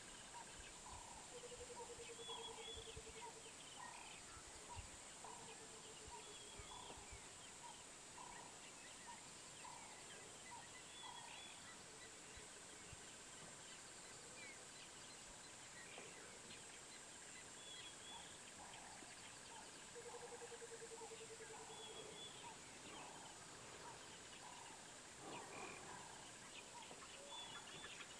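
Faint bush ambience: a steady high-pitched insect drone with birds calling over it in short repeated notes, and three times a rapid low trill lasting a second or two.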